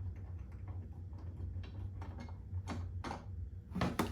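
Light, irregular clicks and taps of small metal screws and mounting hardware being handled and picked out, with a few sharper clicks near the end, over a steady low hum.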